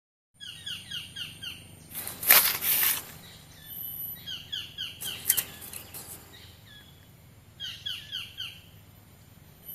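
A bird calling in quick runs of about five short, falling, high notes, three runs in all. A loud rustle of leaves or handling comes in between, at about two to three seconds, with a faint high steady insect drone underneath.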